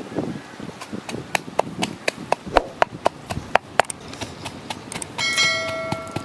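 Wooden pestle pounding in a mortar, sharp knocks about four a second. About five seconds in, a bright ringing chime, the bell sound effect of a subscribe-button animation.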